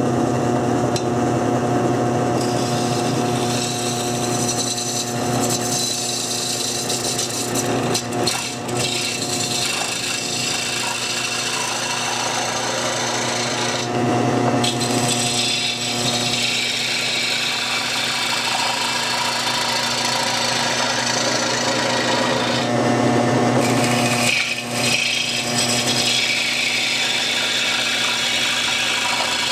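Homemade wood lathe running while a gouge hollows the inside of a spinning wooden bowl: a steady motor hum under a continuous scraping cut as wood chips peel off. The cutting noise swells and eases as the tool is worked, dropping away briefly twice.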